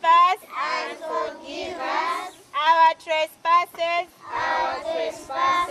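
A group of young children singing together in chorus, in short rhythmic sung phrases.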